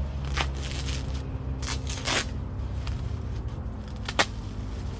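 A few short scraping, crackling noises and one sharp click about four seconds in, as holes are punched through plastic mulch film, over a steady low hum.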